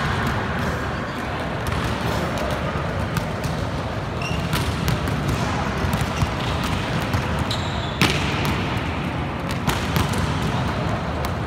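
Volleyballs being hit and bouncing on the court floor of an indoor sports hall: scattered sharp slaps and thuds over a steady wash of hall noise, with the loudest slap about eight seconds in.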